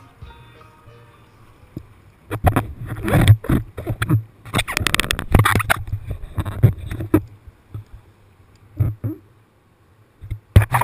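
Water splashing and sloshing against a kayak and over the camera in irregular loud bursts, with a song fading out in the first second.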